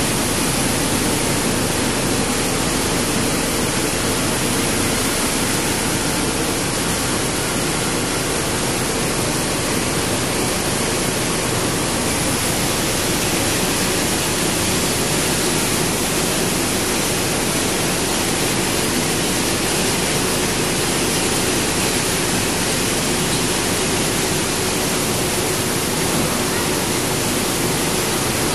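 Steady, unchanging noise of industrial recycling machinery running, an even rushing sound with a faint hum in it.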